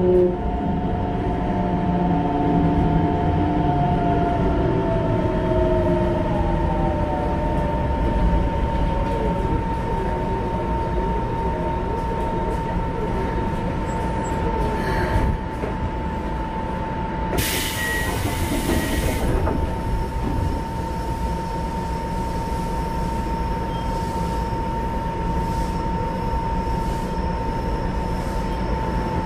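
Keikyu 1500 series train's Mitsubishi GTO-VVVF inverter, heard inside the car, whining down in pitch under braking as the train slows into the station. Over a steady high hum, a short hiss comes about two thirds through.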